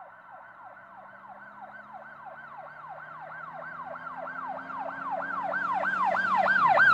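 Emergency-vehicle siren on a fast yelp, swooping up and down about three and a half times a second and getting steadily louder.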